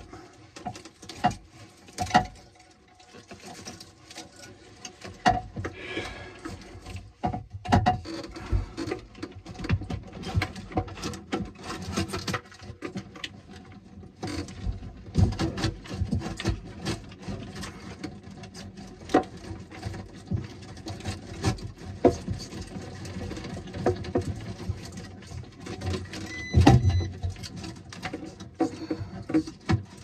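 Handling noise from an old metal alarm control panel being dismantled: scattered clicks, knocks and rustles as bundled alarm cables and the circuit board tray are moved against the steel enclosure. There is a louder knock near the end, over a faint steady hum.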